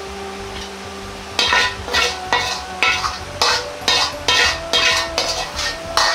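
Metal ladle scraping and swirling around the inside of a wok in quick strokes, about two a second, starting about a second in, with a little sizzling.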